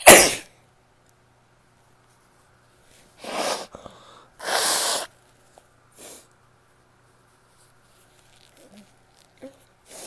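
A woman's loud, sudden sneeze right at the start, followed by two breathy bursts of noise about three and four and a half seconds in and a short one about six seconds in.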